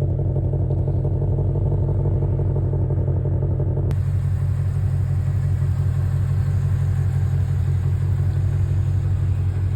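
Ford Mustang's V8 idling steadily with a deep, even pulsing rumble. About four seconds in, a faint hiss above it changes suddenly.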